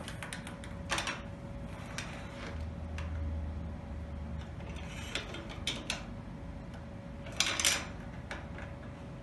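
Plastic Lego bricks being handled and pressed together: scattered small clicks and rattles, with a short burst of clicking near the end.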